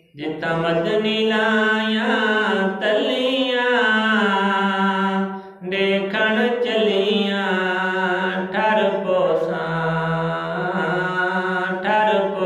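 A man singing a Saraiki naat (devotional poem praising the Prophet) close into a handheld microphone, in long held notes with wavering ornaments. The singing breaks off briefly about halfway, then carries on.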